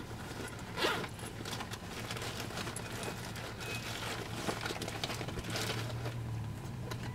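Lions feeding on a kudu carcass: scattered crunching, tearing and rustling as they chew, with a brief louder rustle about a second in. Under it runs the steady low hum of an idling vehicle engine.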